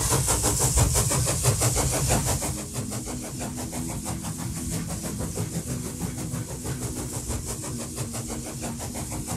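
Car engine just started, running fast and loud at first, then settling to a steady, quieter idle about two and a half seconds in.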